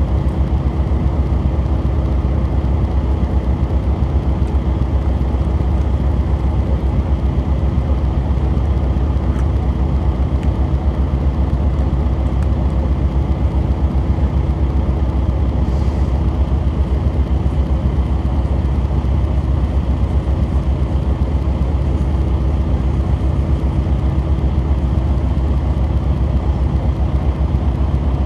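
Diesel railcar engine running with a steady, deep, rapidly pulsing rumble and a constant hum, heard from inside the passenger cabin.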